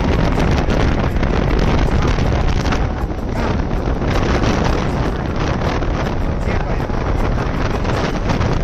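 Heavy wind buffeting on the microphone of a moving motorcycle, with the bike's running noise underneath.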